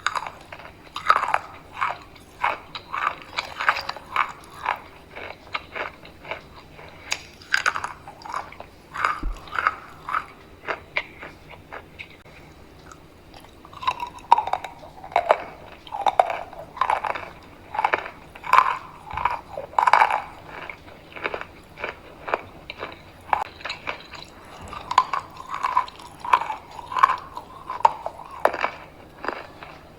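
Close-miked biting and crunchy chewing of chalk: a steady run of sharp crunches, with a couple of short pauses.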